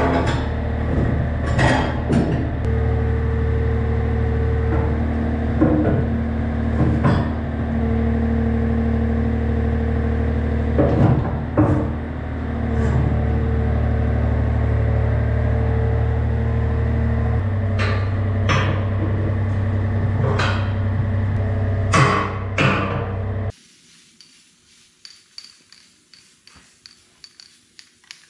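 Yanmar B37 mini excavator's diesel engine running, with hydraulic whine coming and going as the arm and bucket move and sharp metal clanks as the bucket is picked up on the quick-change coupler. The engine speeds up about three seconds in and eases off later. Near the end the machine sound cuts off abruptly, leaving only faint ticks and hiss.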